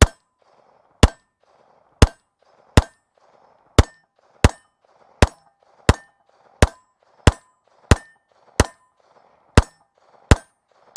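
A 9mm Walther PPQ M2 pistol firing 124-grain ball at a steady, deliberate pace: about fifteen single shots, roughly one every three quarters of a second. Each shot is trailed by a brief ringing tail.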